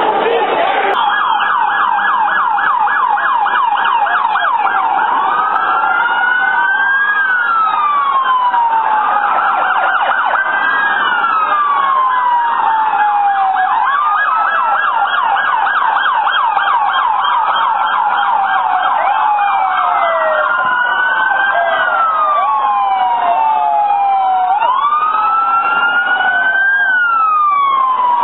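Police car sirens sounding together. One is on a fast yelp, the other on a slower wail that rises and falls every two to three seconds.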